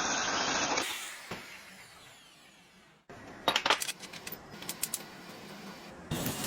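Workshop tool noise: a power tool runs and fades away, then, after an abrupt cut, a quick cluster of sharp metallic clinks and taps, with another loud tool noise starting near the end.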